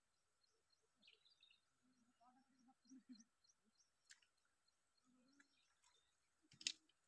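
Faint bird chirps and a few low murmured voices in near quiet; near the end, one short sharp sound as a long bamboo stick rod is jerked up out of the water on a strike.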